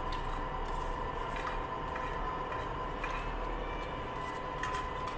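A steady background hum with a faint held tone, with a few light clicks of plastic utensils against plates and bowls.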